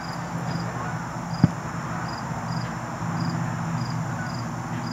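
Insect chirping in short, evenly spaced high pulses, about two a second, over a steady low hum. One sharp click comes about a second and a half in.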